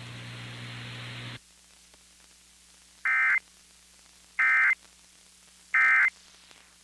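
Hiss of radio static that cuts off about a second in, then three short, identical warbling data bursts a little over a second apart from a NOAA Weather Radio broadcast. These are the SAME digital End of Message code that closes an emergency alert.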